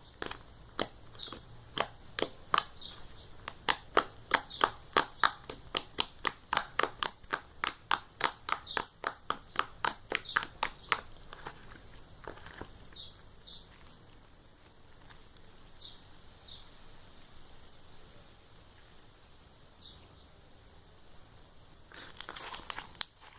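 Sticky homemade slime being squeezed and kneaded by hand, giving a quick run of sharp clicks and pops, about three a second, through the first half, then only a few faint pops.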